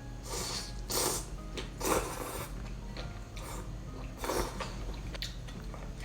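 Eating sounds from a bowl of spicy malatang: five short slurps of noodles and broth about a second apart.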